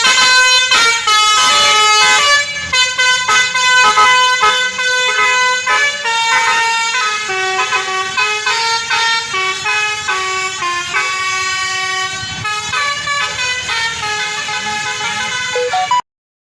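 Bus telolet horn, a basuri-type multi-trumpet musical air horn, playing a tune of quickly changing notes, then cutting off suddenly near the end.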